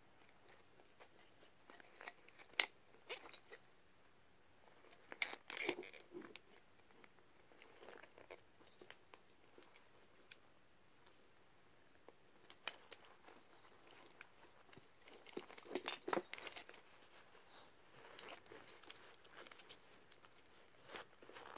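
Handling noises from a 1953 USN ND Mark V prototype gas mask being taken apart by hand: scattered sharp clicks and knocks of its hard cover discs and rubber facepiece, with short bouts of crinkling from the paper packing inside it.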